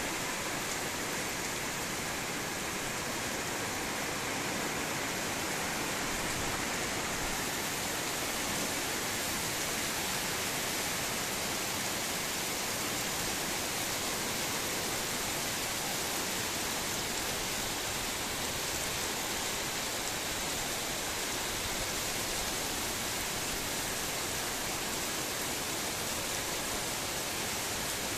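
Heavy rain falling, a steady even hiss that holds the same level throughout.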